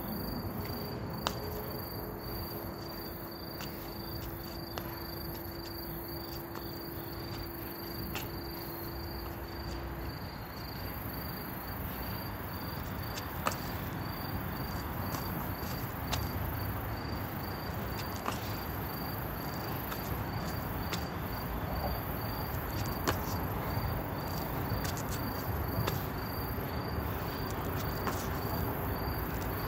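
Crickets chirping in a steady, evenly repeated pulse, with scattered sharp taps of hands and shoes on brick paving.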